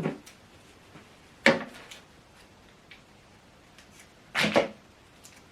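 Three short handling sounds from a power cable being plugged in: a click at the start, a sharp knock about a second and a half in, and a brief clatter of the plug and cable about four and a half seconds in.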